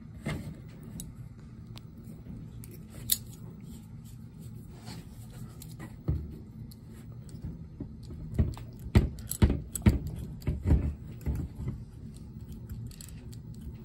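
Locking pliers clicking and knocking against a disassembled Solex 28 PICT-1 carburetor body, with small metal parts clinking. One sharp click comes about three seconds in, and a run of louder clicks and knocks follows from about eight to eleven seconds in.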